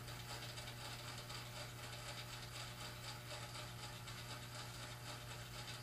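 Faint room tone: a steady low hum under a soft, even hiss.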